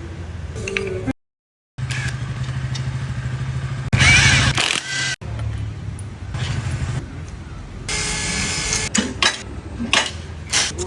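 Hero Xpulse 200 motorcycle's single-cylinder engine running steadily. A louder burst comes about four seconds in, and sharp clicks and knocks follow near the end. The sound drops out briefly about a second in.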